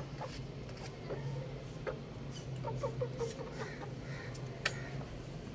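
Young roosters clucking softly in short calls, with scattered sharp clicks; the loudest click comes near the end.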